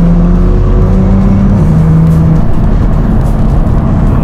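Car engine running under background music, with low held notes that change pitch in steps during the first couple of seconds.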